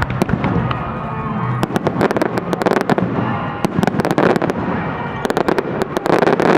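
Fireworks bursting in rapid crackling volleys: dense clusters of sharp cracks and bangs come in three waves, about two seconds in, around four seconds and again near the end.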